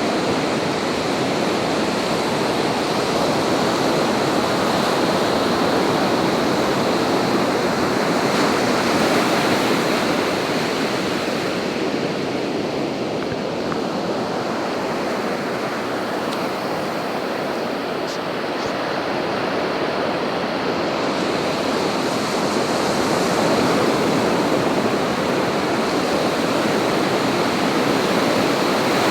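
Ocean surf: a continuous wash of breaking waves, the loudness swelling and easing slowly as the waves roll in.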